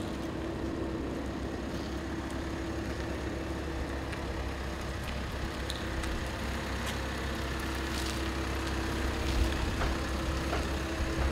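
Pickup truck engine running as the truck drives slowly past, getting louder near the end, with a steady hum underneath.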